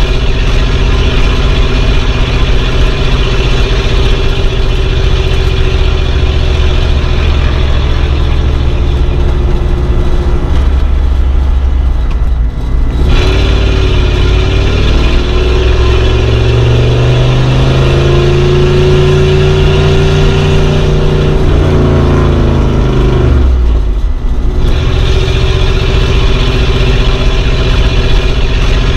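An old car's engine running while driving. About twelve seconds in, the engine note drops out briefly, then climbs steadily in pitch as the car speeds up, and drops out briefly again a few seconds before the end before settling back to a steady run.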